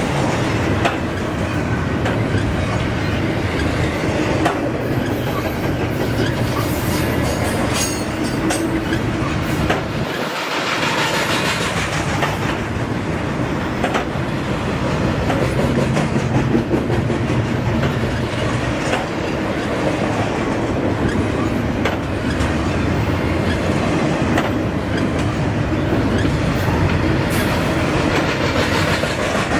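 Double-stack intermodal well cars of a Union Pacific freight train rolling past close by: a steady rumble of steel wheels on rail with repeated clicking as the wheels cross the rail joints.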